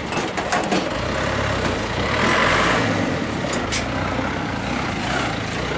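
Steady machine drone with a low hum, a few sharp clicks in the first second, and a louder hiss about two seconds in.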